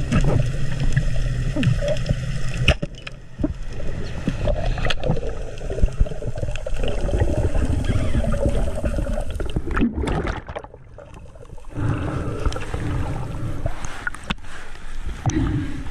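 Water noise recorded by an underwater camera: rushing and gurgling with scattered crackles and pops, dropping away for about a second and a half roughly two-thirds through before coming back.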